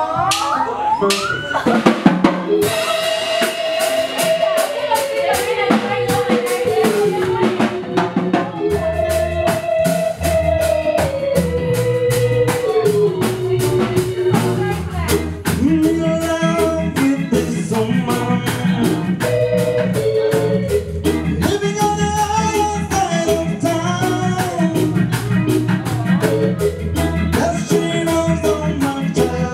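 Live band playing: a drum kit keeping a steady beat over a bass line, with electric guitars and a melody that steps down in pitch again and again. A loud drum hit comes about two seconds in.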